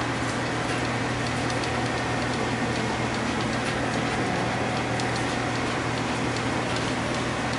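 Spoon scraping and tapping inside a small strainer as blended sauce is pressed through into a pot, a scatter of faint small clicks over a steady low hum.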